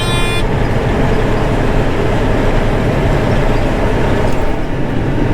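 John Deere 9500 combine at full throttle with the header engaged, a steady drone of engine and threshing machinery, turning freely now that the plug has been backed out of the feeder house. A high steady tone stops about half a second in.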